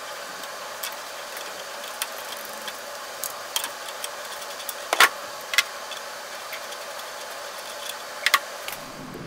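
Scattered sharp metal clicks and taps as channel-lock pliers grip and turn a steel tool-post bolt out of a mini lathe's compound slide, over a steady hiss. The loudest tap comes about halfway through, and a quick double click near the end.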